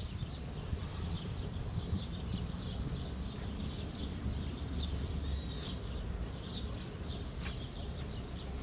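Small birds chirping over and over in the trees, many short calls overlapping, above a steady low rumble.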